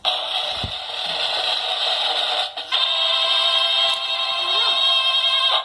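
Drum sound effect played from a battery-powered sound-effects button box through its small speaker. It starts as a dense rattle with a low thump about half a second in, turns steadier and more ringing about two and a half seconds in, and cuts off suddenly near the end.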